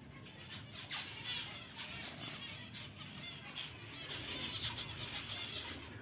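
Zebra finches calling with short, high notes repeated over and over, most densely in the second half, together with brief wing flutters and rustling as the chicks scramble.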